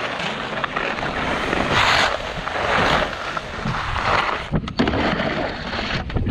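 Skis sliding and scraping over snow: a hissing noise that swells and fades, with a few sharp knocks about four and a half seconds in.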